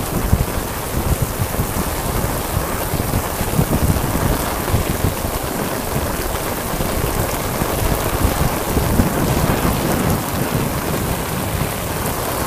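Heavy downpour: loud, steady rain pouring onto a flooded street, with an uneven low rumble underneath.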